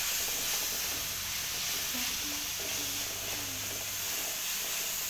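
Thick masala paste of onion, tomato, ginger and garlic sizzling steadily in ghee in a kadhai, stirred and scraped with a wooden spatula.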